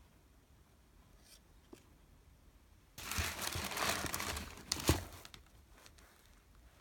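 Tissue paper crinkling and rustling for about two seconds as a trainer is pulled out of its cardboard shoebox, with one sharp knock near the end.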